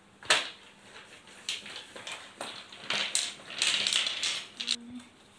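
Rustling and a scatter of sharp clicks and knocks as small plastic paint bottles are tipped out of a zippered fabric pouch onto a hard floor. The rustling is densest and loudest toward the end.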